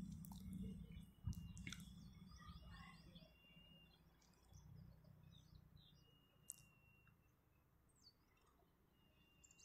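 Near silence, with faint bird chirps scattered through and a weak low rumble in the first few seconds.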